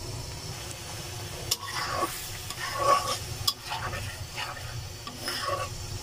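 A metal spatula stirring and scraping through mola fish curry in a pan, with several sharp scrapes and clicks against the pan, over the sizzle of the thick spiced gravy as the fish is fried down in its masala.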